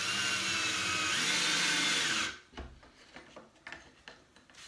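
Cordless drill driving a screw into a wood board, its motor whine rising in pitch about a second in and stopping abruptly just over two seconds in. A few light clicks and taps follow.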